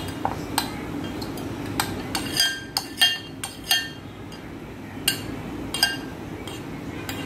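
Metal spoon clinking irregularly against a glass mixing bowl while stirring, each strike leaving a short glassy ring.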